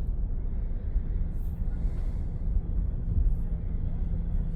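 Steady low rumble of a car's engine and tyres heard from inside the moving vehicle, with a faint steady hum joining about two seconds in.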